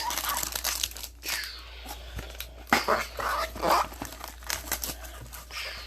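Plastic wrapping crinkling and tearing in quick, uneven rustles and clicks as a sealed trading card box is unwrapped by hand.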